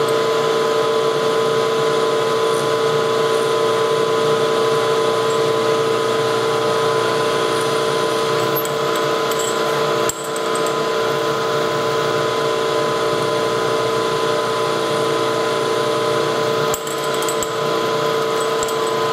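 Milling machine spindle running with a steady whine while a drill bit cuts a hole in a metal bar. Two brief clicks, with short dips in level, come about ten seconds in and near the end.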